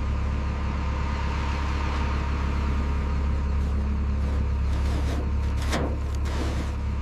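A vehicle engine running steadily at constant speed, with a deep, even hum.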